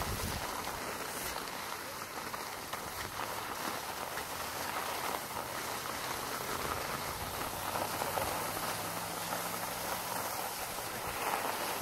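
Skis sliding over packed snow, a steady granular hiss, with wind on the microphone.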